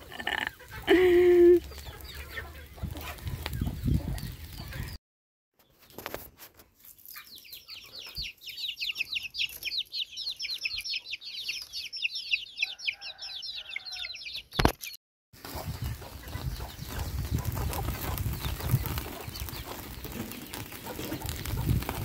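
Chickens clucking briefly at the start. After a cut, a fast high chattering trill runs for about seven seconds, then a steady low outdoor rumble fills the rest.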